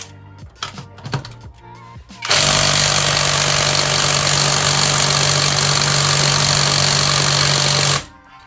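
Panzer PTIW-1180S 18 V brushless cordless impact driver hammering steadily on a bolt through a socket and extension, starting about two seconds in and cutting off abruptly near the end without breaking the bolt loose. A few light clicks come before it.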